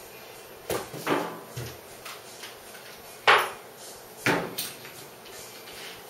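Metal tools and parts being handled and set down: about six sharp metallic clinks and clanks, the loudest about three seconds in.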